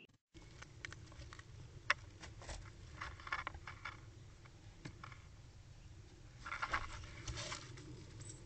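A cat moving about inside a wooden hedgehog house: paws scuffing and scraping on the box floor and bedding. Scattered sharp ticks, with bursts of scratchy rustling about three seconds in and again near seven seconds.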